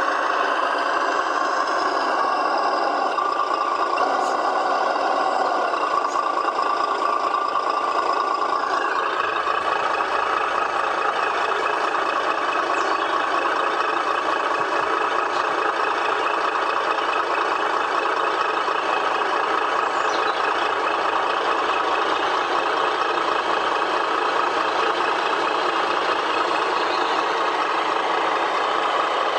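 Electronic diesel-truck engine sound from a radio-controlled Tamiya truck's sound unit, idling steadily through its small onboard speaker: thin, with no deep bass. The engine note shifts upward about nine seconds in.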